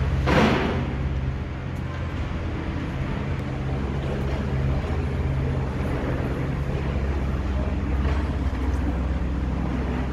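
A steady low mechanical drone with a constant hum, with a brief rush of noise about half a second in.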